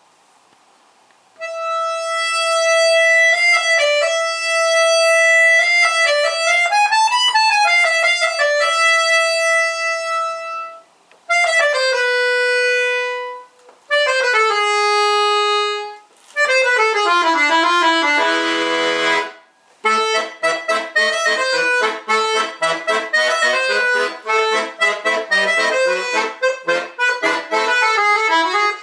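Solo bayan (Russian chromatic button accordion) playing. It opens with a free-tempo passage of long held notes, ornamental trills and falling runs, with short breaks between phrases. About twenty seconds in it moves into a fast dance rhythm of short, detached chords over the bass.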